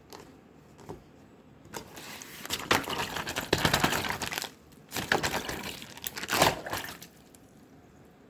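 Slime being squeezed and pressed by hand, giving dense crackly clicks and sticky pops in two bursts: one building from about two seconds in, another from about five seconds to seven.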